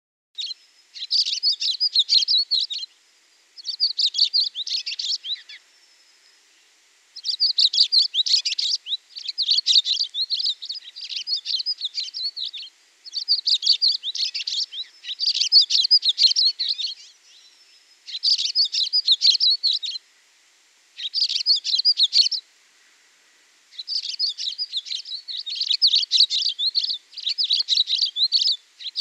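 Small songbirds chirping, high and thin, in phrases of rapid chirps a second or two long, repeated with short pauses between.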